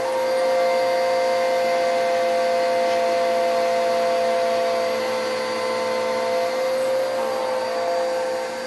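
Vacuum cleaner running steadily with a loud motor whine, its pitch wavering a little about seven seconds in.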